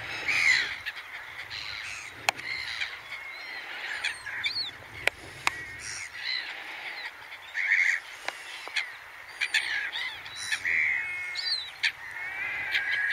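A flock of gulls calling over the sea: many overlapping harsh cries, some falling in pitch, with a few sharp clicks among them.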